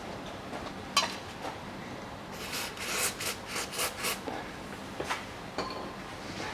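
Hands working at a plastic electrical connector on the rear hub's wiring. A single sharp click comes about a second in, then a quick run of about eight short rubbing scrapes, and two lighter clicks later.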